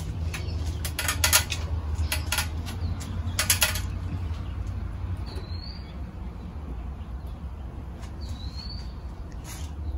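Crackling and clicking of electrical wires being handled as a wire nut is twisted onto a ground-wire splice, in several quick clusters during the first four seconds. A bird chirps twice in the background, each a short rising note. A steady low rumble runs underneath.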